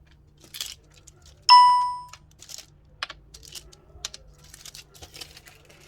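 Light clicks and rustles of small hard homemade cough drops being handled. About one and a half seconds in comes a single loud bell-like ding that fades within about half a second.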